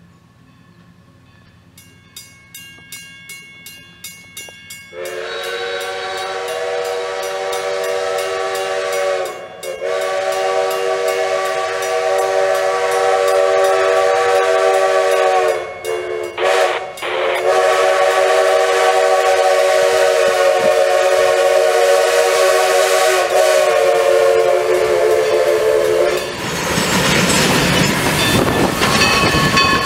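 Grade-crossing signal bell ringing steadily, then the steam locomotive's whistle blowing the grade-crossing signal: two long blasts, a short one and a final long one. Near the end the whistle stops and the locomotive and its coaches rumble and clatter across the crossing close by.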